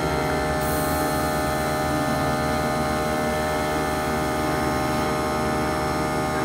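Small air compressor running with a steady, even hum, feeding an airbrush; a high hiss of air from the airbrush comes in about half a second in as it sprays paint through a stencil.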